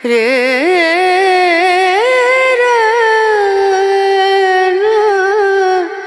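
Background music: a solo voice singing one long ornamented phrase. It wavers quickly and widely at first, then settles into held, gliding notes, and breaks off near the end.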